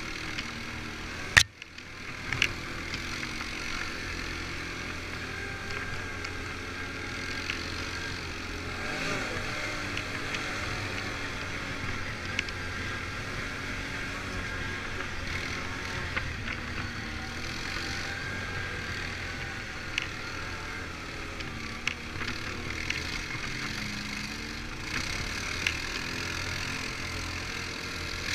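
Quad bike (ATV) engine running over a rough forest dirt track, its pitch rising and falling with the throttle, with scattered knocks and rattles from the bumps. A sharp loud thump about a second and a half in.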